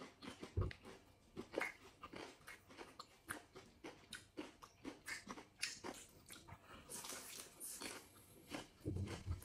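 Close-miked chewing and crunching as two people eat goat biryani by hand with fresh lettuce leaves: many short, irregular crunches and mouth sounds.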